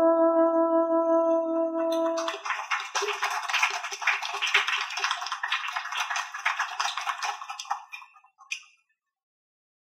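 An oboe holds a final long note that ends about two seconds in, followed by applause from a small audience, scattered individual claps, that fades out and stops near the end.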